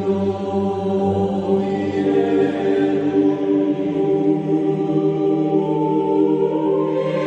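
Music with slow, choir-like chanting over long held notes that change pitch every few seconds.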